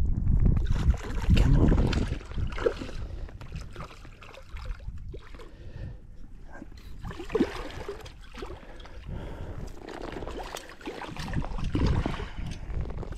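Small boat on a lake: a low rumble at first, then water lapping and scattered knocks and handling noises.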